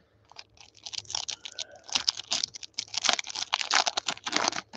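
Panini Prizm basketball card pack's wrapper being torn open and crinkled by gloved hands: a quick, irregular run of crackling rips that starts about half a second in and grows busier from about two seconds in.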